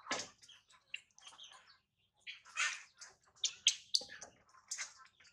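Newborn baby monkey squeaking and crying in short, irregular, high-pitched calls while it is being bathed.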